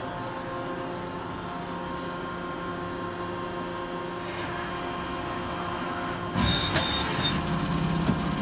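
Haas VF-0 vertical machining center powered up, giving a steady electrical hum. About six seconds in, a louder servo whine and rumble sets in as the table travels along its axis.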